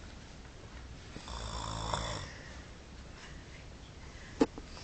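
A sleeper snoring: one drawn-out snore lasting about a second, starting about a second in, over a faint low hum. A short sharp click comes near the end.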